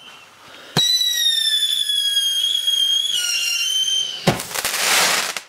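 A whistling firework goes off with a sharp crack, then gives a steady shrill whistle that sags slightly in pitch over about three seconds. Then comes a loud hissing, crackling burst of about a second, which cuts off suddenly.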